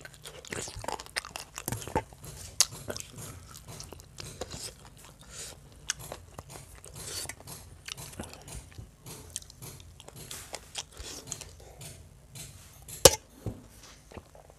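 Close-miked chewing and wet mouth sounds of a man eating chicken curry and rice by hand, with many small clicks and one louder, sharp knock near the end.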